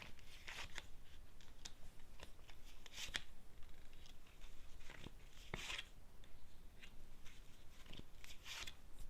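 Fortune-telling cards being shuffled and handled: faint, scattered swishes and light ticks.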